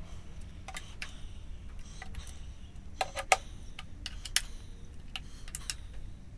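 Hand socket ratchet clicking in short runs as bolts are turned on a Subaru EJ25 engine, with a few sharper clicks about three seconds in.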